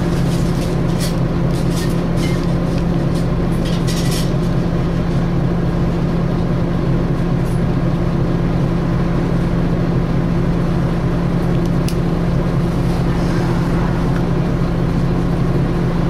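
Cooling fan of a Wright Meridian-bodied MAN A22 bus running with a steady hoovering whirr over the diesel engine's steady drone, heard from inside the passenger cabin. A few light clicks or rattles in the first few seconds.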